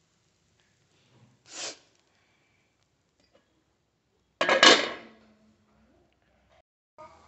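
An aluminium dome lid is set down on a dosa pan with a sudden metal clatter about four and a half seconds in, ringing briefly. A shorter, softer noise comes about a second and a half in.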